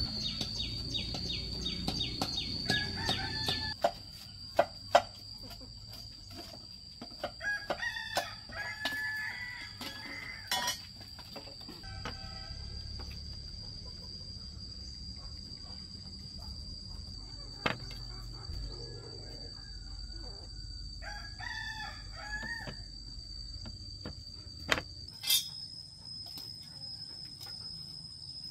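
A rooster crowing twice, about eight seconds in and again about twenty-one seconds in, over a steady high insect trill. Scattered sharp knocks sound throughout, the loudest a pair about five seconds in.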